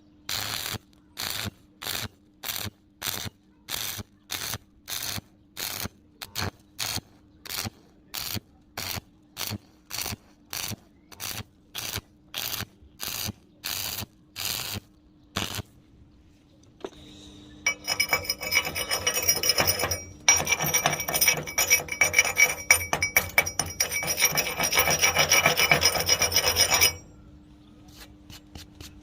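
Rhythmic hand scraping on metal, about two strokes a second for some fifteen seconds, like a file or wire brush being worked back and forth. After a pause comes about nine seconds of dense, harsh crackling with a steady hiss, the loudest part, over a steady low hum.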